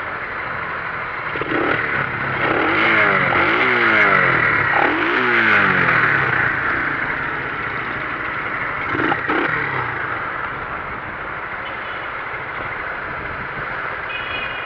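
Motorcycle on the move with a steady rush of wind and road noise. From about a second and a half to seven seconds in, and again around nine seconds, engine notes slide up and down in pitch.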